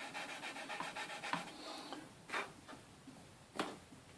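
Hand sanding of a small plastic model-kit part: quick, even rubbing strokes for about two seconds, then two sharp taps, about two and a half seconds in and again a second later.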